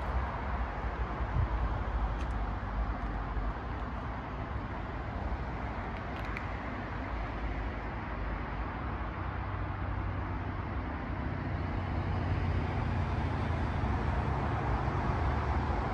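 Steady car and road-traffic noise, with a low car engine hum that grows louder over the last few seconds.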